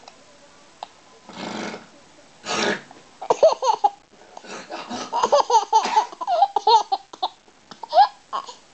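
Two short mock snores, breathy and noisy, followed about three seconds in by a baby laughing in quick high-pitched bursts with brief gaps.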